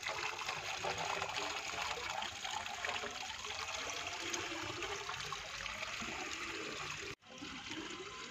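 Water poured from a plastic bucket into the top of a narrow 2-inch bore pipe, pouring and splashing steadily as it spills over the pipe mouth. It cuts off sharply about seven seconds in and comes back a little quieter.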